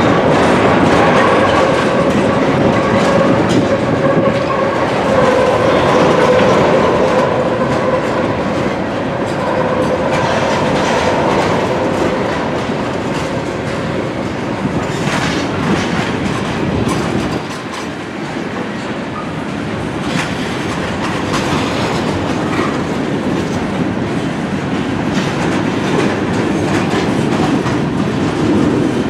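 Freight train cars (tank cars, then covered hoppers) rolling past close by, wheels clattering over the rail joints. A steady whine sounds over roughly the first twelve seconds, then fades.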